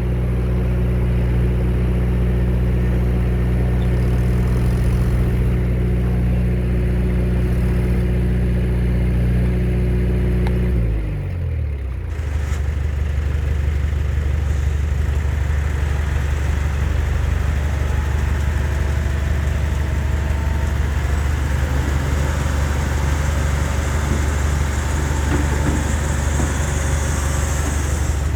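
Heavy machine's diesel engine running steadily at high revs. About eleven seconds in, the revs drop in a quick downward slide, and it then runs on steadily at a lower speed.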